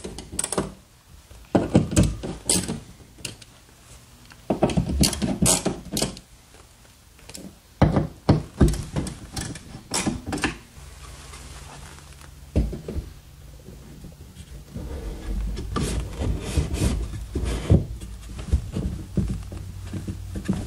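Hardware handling noises: clicks and knocks of a screwdriver at the screw of a steel floating-shelf bracket, then a wooden shelf rubbing and knocking as it is slid onto the bracket's rods near the end.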